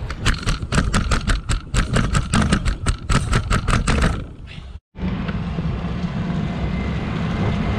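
Bicycle rattling and clattering over a rough, steep path: a quick, uneven run of sharp knocks for about four seconds. After a brief drop-out, a steady rumble of tyres and wind on smooth tarmac, with a low steady hum.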